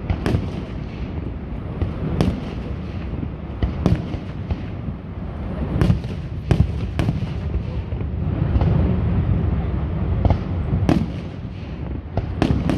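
Aerial fireworks shells bursting overhead: a string of sharp bangs at irregular intervals, roughly one every second or so, over a steady low rumble.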